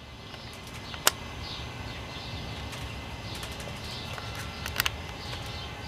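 Birds singing at dawn, repeated short high chirps, over a steady low rumble. Two sharp clicks, about a second in and near the end.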